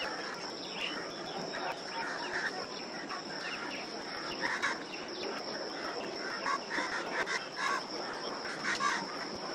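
Crows cawing and squirrels chirping in short, repeated calls, thicker in the second half, over a steady high-pitched hum.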